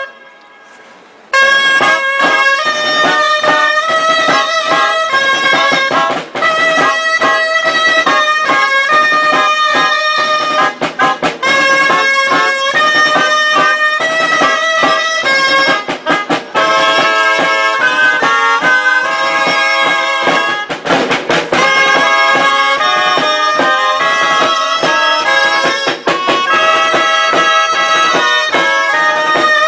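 Gralles, Catalan double-reed shawms, playing a folk tune together over a beat on tabal drums. The music starts after a short pause about a second in.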